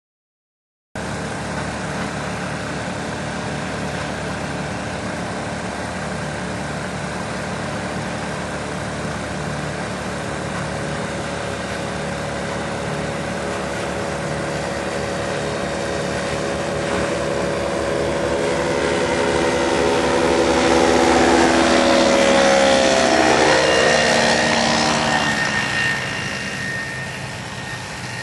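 M-Squared Breese XL ultralight's Hirth F33 single-cylinder two-stroke engine and propeller in flight, starting about a second in as a steady drone. It grows louder as the plane passes close, loudest a little past the middle, then drops in pitch and fades as it moves away.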